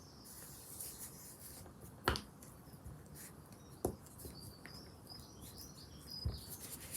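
A metal spoon rubbing over paper to press flower petals into it, with three short knocks. Birds chirp faintly in the background, mostly in the middle.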